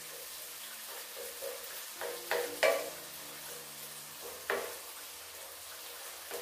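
Sliced onions sizzling in melted butter in a nonstick electric skillet, stirred with a wooden spatula. The spatula knocks against the pan three times, loudest about two and a half seconds in.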